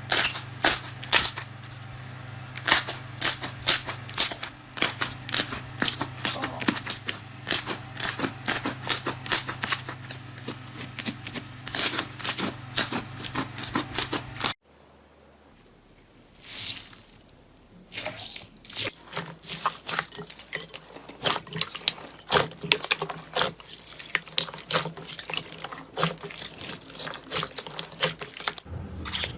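Slime being squished and pressed by hand, making many quick wet clicks and pops, with a low steady hum under the first half. The sound cuts off abruptly about halfway, and after a few quieter seconds the wet clicking starts again.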